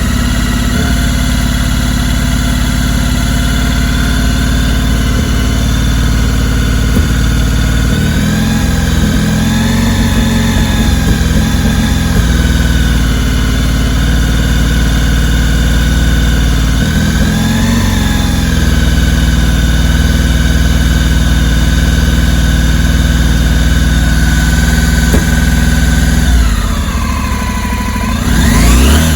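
Car engine idling steadily, its speed wavering briefly a couple of times, then dipping and revving up near the end.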